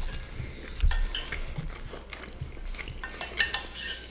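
Metal spoons scraping and clinking on ceramic plates as the last of the rice and strogonoff is scooped up, with a few sharp clinks, several of them close together about three seconds in.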